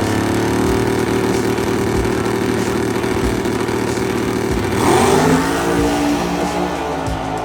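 Race car engine running loudly, its pitch rising sharply as it revs up about five seconds in.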